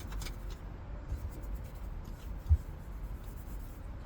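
Hands working an old car radio loose from the dashboard: faint rubbing and scraping with a few light clicks, and one dull thump about halfway through.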